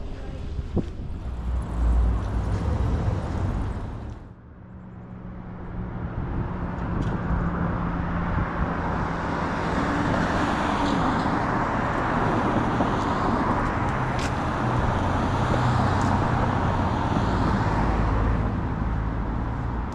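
Downtown street traffic: cars and other vehicles running and passing, with a steady low engine hum. There is a brief lull about four seconds in, after which the traffic builds and holds.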